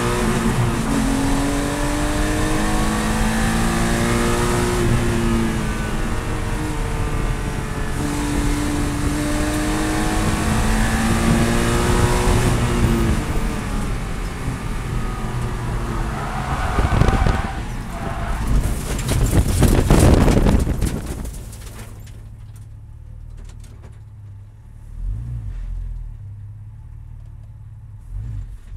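In-car sound of a Porsche Spec Cayman's flat-six at racing speed, its pitch rising and falling through gear changes and corners. About sixteen seconds in the car runs off the track: a loud rush of noise with many knocks as grass and dirt strike the car for several seconds. Then the engine drops to a low idle with the car stopped, blipped once briefly.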